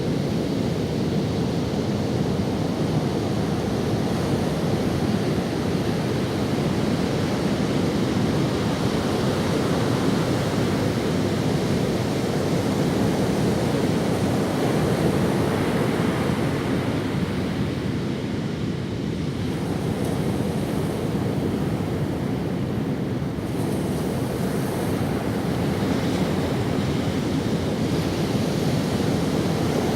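Ocean waves breaking and washing up on a sandy beach: a steady rush of surf that eases briefly about two-thirds of the way through.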